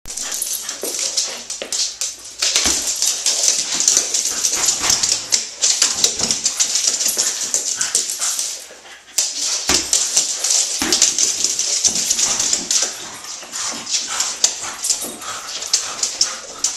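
French bulldog whining while it plays at a large ball, with many quick clicks and scuffs from its claws and feet on a wooden floor.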